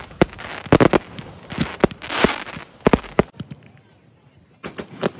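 Boxed fireworks firing: a rapid string of sharp bangs and crackles, with a rushing hiss about two seconds in. The bangs drop away for about a second, then a few more come near the end.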